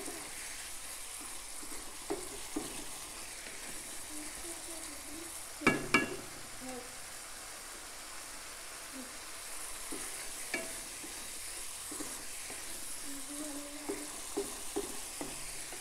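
Spiced masala paste and shrimp sizzling in a nonstick wok as it is fried down (bhuna), stirred and scraped with a wooden spatula. A few sharp knocks of the spatula on the pan, the loudest with a short ring about six seconds in.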